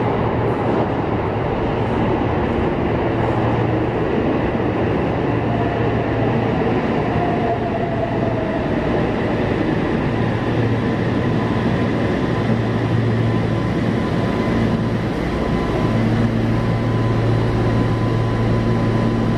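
Yokohama Municipal Subway Blue Line 3000S-type train running into an underground station and braking to a stop, a steady rumble with a whine that falls in pitch as it slows.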